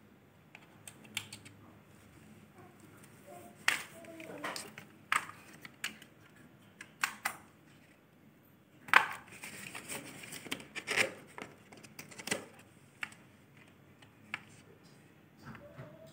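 Scattered clicks and rustles of a CCTV camera's power cable and adapter being unwound, handled and plugged in. The clicks come thickest in the middle of the stretch.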